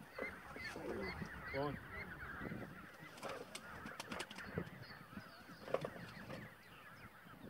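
Geese honking and calling repeatedly, several birds at once. A few sharp clicks stand out between about three and six seconds in.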